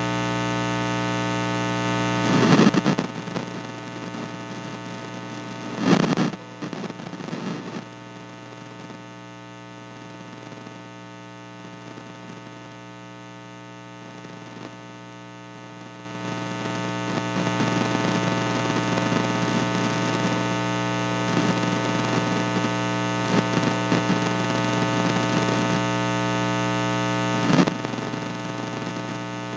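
Electrical mains hum: a steady buzz of many even tones, broken by sudden loud crackles about two and a half seconds in, again about six seconds in, and once near the end. The buzz drops to a fainter level for about ten seconds in the middle, then comes back.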